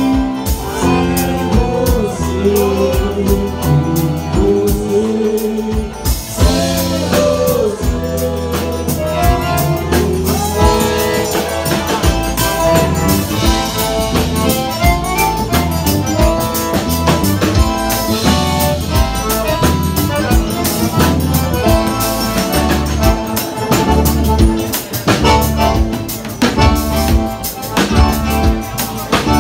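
Live forró pé-de-serra band playing: accordion carrying the melody over a zabumba drum, bass and guitar, with a steady dance beat.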